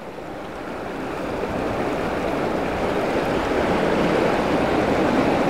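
Ocean surf washing in, a steady rush that builds gradually louder.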